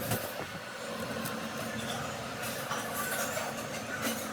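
Football stadium crowd noise: a steady din from the stands.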